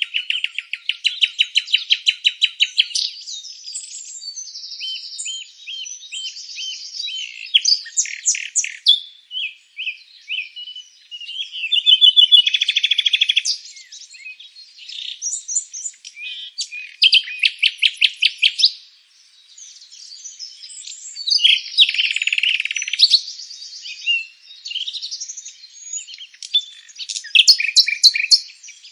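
Several songbirds singing at once: overlapping chirps, whistled phrases and rapid trills of fast-repeated notes, one bird's song following another with little pause.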